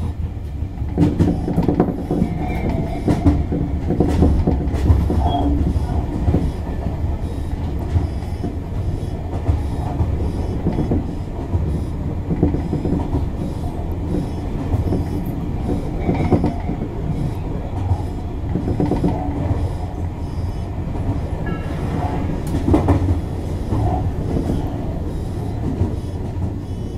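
Electric commuter train running along the line, heard from inside the carriage: a steady rumble of motors and wheels, with repeated clicks and clatter of the wheels over the rails.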